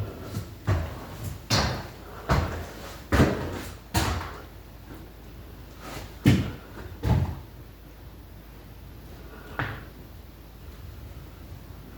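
An irregular series of about nine knocks and thumps, most of them in the first four seconds, a few more spaced out after that.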